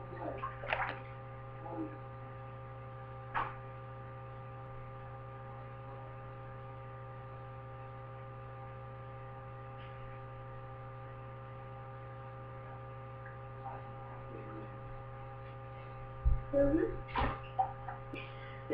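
Steady electrical hum with several fixed tones, broken by a few brief splashes as a bearded dragon thrashes in shallow water in a sink: a couple about a second in, one a few seconds later, and a louder cluster near the end.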